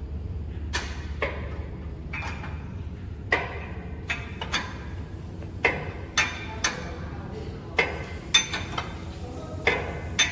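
Metal tools and machine parts clinking and knocking: about a dozen sharp, irregular metallic strikes, each ringing briefly, over a steady low hum.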